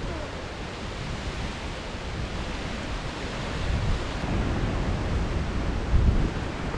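Gusting wind rushing steadily and buffeting the microphone with a low rumble that swells near the end.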